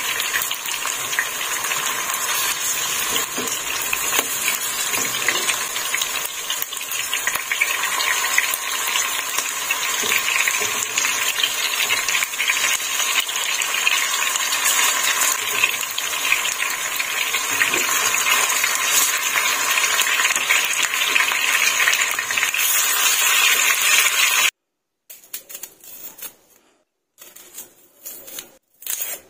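Strips of cured meat frying in hot oil in a nonstick pan: a steady, dense crackling sizzle. About 24 seconds in it cuts off, and short scraping and peeling sounds of a knife taking the skin off a red onion follow, with silent gaps between them.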